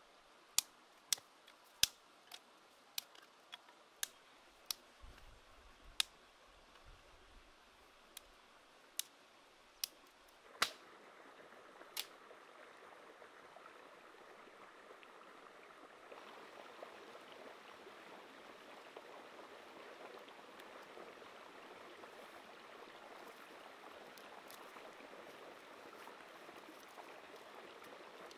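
Campfire wood clicking and popping in sharp, irregular cracks, about fifteen in the first twelve seconds, as sticks are knocked and shifted in the embers. A steady faint hiss follows and grows louder about sixteen seconds in.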